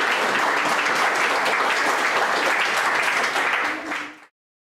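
Audience applauding, a dense steady clapping that fades out about four seconds in.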